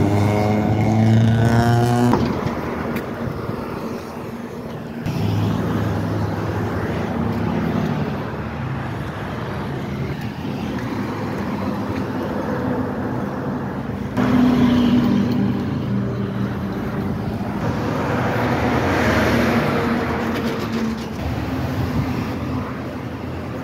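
Street traffic: trucks and cars driving past, with the drone of diesel engines over tyre noise. The engine sound changes abruptly a few times.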